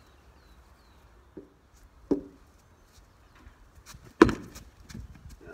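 A couple of soft knocks, then a sharp crack about four seconds in, the loudest, as a tennis ball strikes the batsman on the bat or gloves. It is close enough that he cannot tell whether it hit glove, arm or bat.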